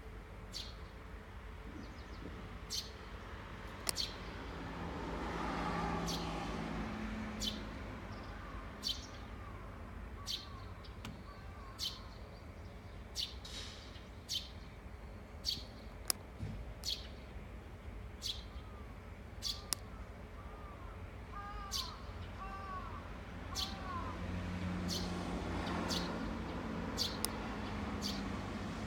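Birds chirping, with short sharp high notes every second or so and runs of looping call notes now and then. Twice a vehicle passes, rising and fading with a low hum, once near the start and once near the end.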